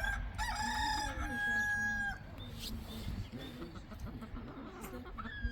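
A rooster crows once, starting about half a second in and ending on a long held note. Softer clucking from the chickens follows.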